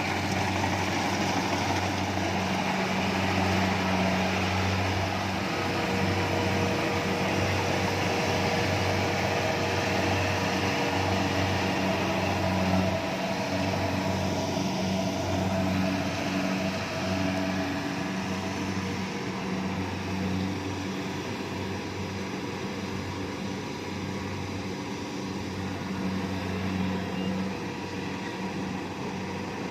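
Kubota rice combine harvester's diesel engine running steadily under harvesting load, an even hum that grows a little quieter in the second half.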